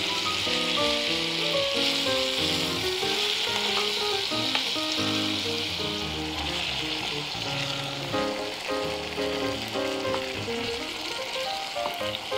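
Chicken, onion and diced tomato sizzling steadily in a hot frying pan as they are stirred and turned, with a background music melody over it.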